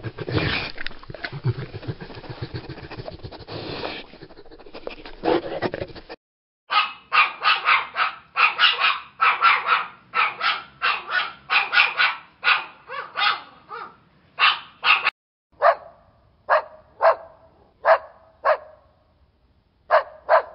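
A Bullmastiff panting heavily for about six seconds. Then Chihuahuas yap: a quick run of sharp, high yaps, slowing to single yaps about one a second.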